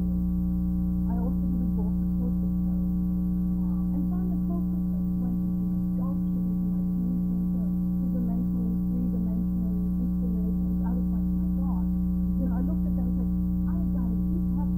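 A steady electrical mains hum, loud and even, made of several level tones. Beneath it a woman's voice can be heard talking faintly, her speech recorded too low.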